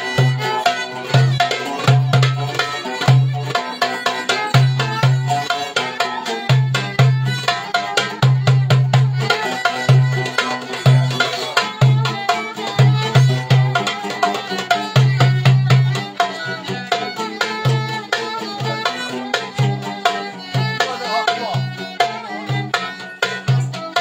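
Turkish folk dance music played live and without singing: a darbuka (goblet drum) keeps a driving rhythm of deep strokes and sharp slaps, under a violin and a plucked banjo-like lute carrying the melody.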